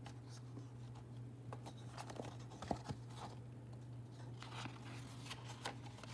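Faint rustling and a few soft taps of a picture book's pages being handled and turned, over a steady low hum.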